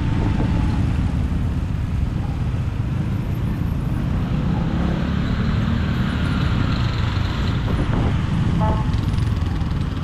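Steady rumble of a Honda ADV160's single-cylinder scooter engine riding slowly in town traffic, mixed with wind noise on the bike-mounted camera and the engines of surrounding motorcycles. A short beep sounds near the end.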